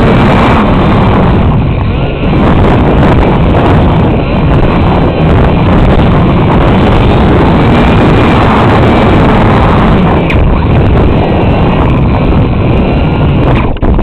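Loud, steady wind buffeting on the on-board camera microphone of an E-flite UMX Radian RC glider, with a brief dip about two seconds in.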